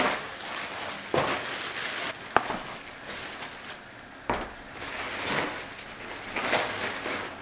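Rustling and handling noises with several sharp knocks, the clearest about two and four seconds in.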